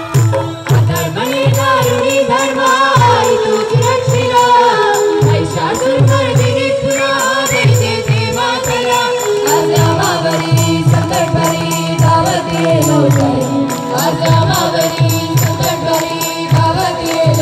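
Live Gondhal, Marathi devotional folk song: a group of voices singing in unison over a repeating low drum beat and a quick, high jingling percussion keeping time.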